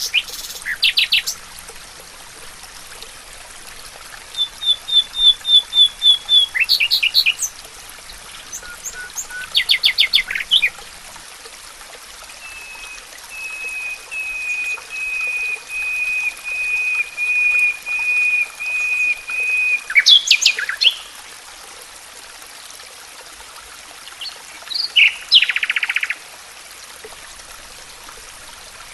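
Several songbirds singing. One gives a quick run of about eight high repeated notes, another a long, even series of repeated notes lasting several seconds, and there are scattered chirps and short trills, all over a steady faint hiss.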